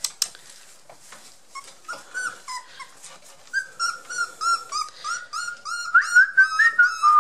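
23-day-old Border Collie puppies whimpering: a run of short, high-pitched squeaking cries, two or three a second, growing louder near the end. A few sharp clicks at the very start.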